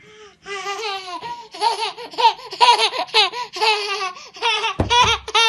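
A toddler laughing hard: a quick run of high-pitched laughs one after another, with a dull bump near the end.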